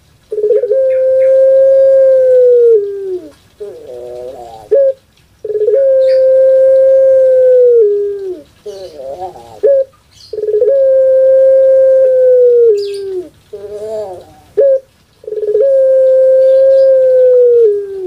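Puter pelung, a long-cooing variety of ringneck dove, giving its drawn-out coo four times. Each coo is a steady held note of about two and a half seconds that dips in pitch at the end, with a short wavering phrase between.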